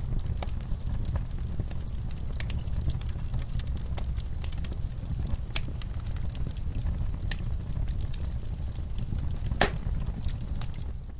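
Wood fire in a fireplace crackling, with irregular sharp pops over a steady low rumble of burning; one louder pop near the end.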